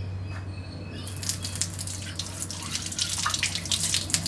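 Old brass wall tap opened, water starting to run about a second in and splashing onto a hand held under the spout, over a steady low hum.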